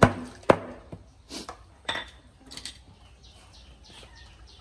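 Cleaver chopping through a crocodile leg on a wooden chopping block: two hard chops about half a second apart at the start, then a few lighter knocks as the pieces are moved. Faint bird chirps in the background after that.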